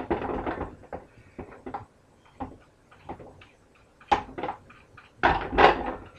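Kitchen handling noise from hands working over a funnel at the sink: a run of clicks, light knocks and rustles, with louder bursts at the start, about four seconds in, and between five and six seconds.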